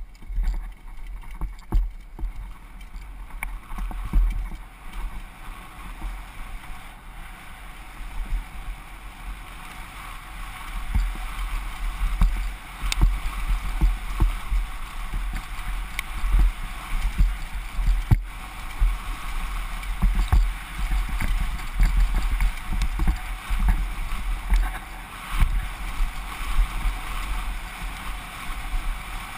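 Wind buffeting a helmet-mounted action camera as a downhill mountain bike runs at speed over a rough dirt track, with the bike's tyres on loose dirt and frequent knocks and rattles from the bike over bumps. The knocks get busier and louder from about ten seconds in.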